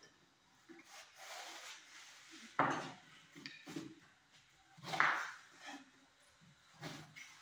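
A thin wooden rolling pin rolling flatbread dough on a floured wooden board, with soft rubbing and two sharp knocks of the pin against the board about two and a half seconds apart, plus a few lighter thumps.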